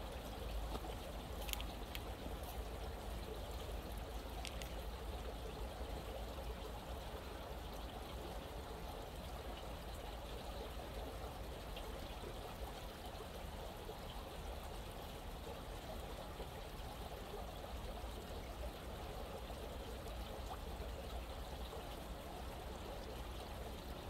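A small stream running steadily, water trickling and pouring, with a steady low rumble underneath. A couple of brief high-pitched sounds come in the first few seconds.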